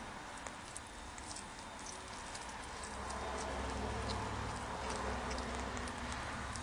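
A cat chewing and tearing at a slab of ham, its mouth making small wet clicks and smacks. A low steady rumble comes up about three seconds in.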